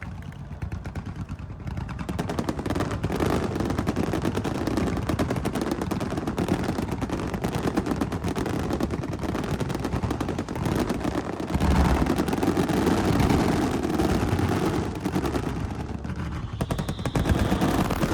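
Fireworks finale barrage: a dense, continuous string of rapid-fire bursts and crackles. It builds over the first couple of seconds and swells louder around the middle and again near the end.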